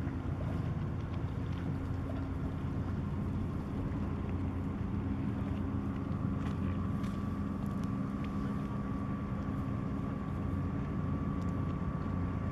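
Marine diesel engines of a harbour tug and a small cargo ship running steadily at close range: a low, even hum. A thin steady whine grows clearer about halfway through.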